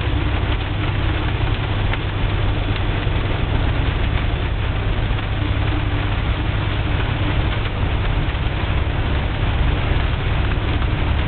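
Very heavy rain pouring steadily onto a car, heard from inside the cabin, over a steady low rumble.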